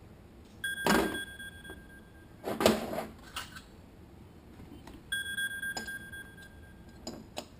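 Steel automatic-transmission parts clinking and being set down on a metal workbench: a few sharp clanks, two of them followed by a short metallic ring that lasts about a second. The loudest clank comes a little under three seconds in.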